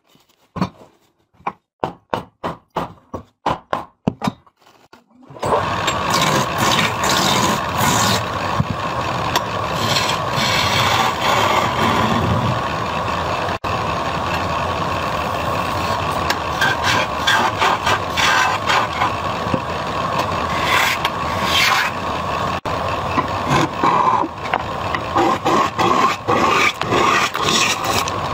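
A run of sharp knocks about two a second, then from about five seconds in a wood lathe runs continuously while a hand-held turning tool scrapes and cuts into the spinning wooden blank.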